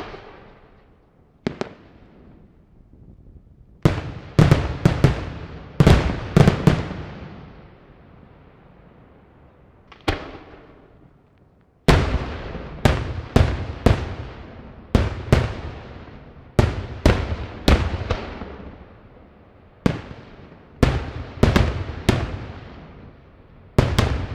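Daytime fireworks display: aerial shells bursting in sharp bangs, each trailing off in an echo. A few single bangs, then a quick cluster of bangs about four to seven seconds in, and from about halfway a steady run of one to two bangs a second.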